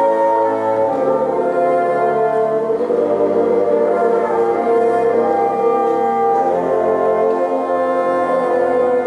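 Reed ensemble of bassoons, contrabassoon and saxophones playing a slow ballad in long, sustained chords that shift every second or two.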